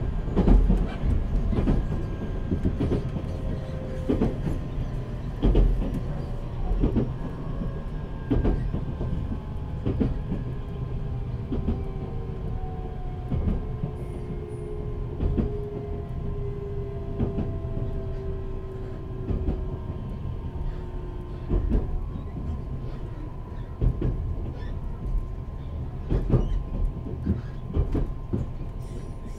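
Running sound inside a JR Central 383 series electric multiple unit's motor car with Toshiba GTO inverter drive: a steady rumble with wheels clicking over rail joints about every second and a half, and the traction motors' whine slowly falling in pitch as the train slows.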